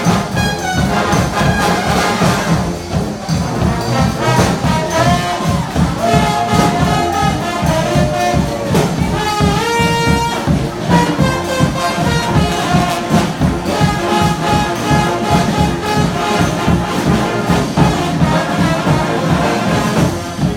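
Brass band playing: horns carry a melody over a steady drum beat.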